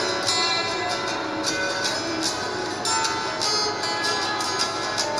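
Acoustic guitar backing track strumming a rhythmic instrumental break, with no singing.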